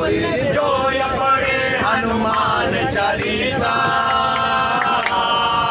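Group of men singing a Hindu bhajan in unison inside a crowded commuter train carriage, drawing out long held notes in the second half, with faint sharp beats keeping time.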